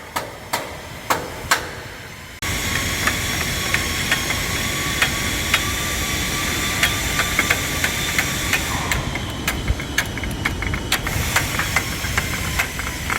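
Sharp metal knocks, about two a second, like hammer blows on the car body, for the first two seconds or so. Then a workshop machine starts suddenly and runs steadily with a hiss and a few faint whining tones, with light clicks through it.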